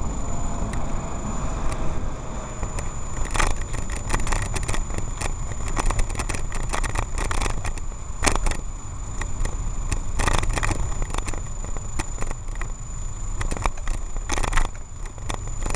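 Wind rumbling on the microphone of a camera carried on a moving bicycle. Over it come frequent sharp clicks and rattles in irregular clusters as the bike and camera are jolted over bumps.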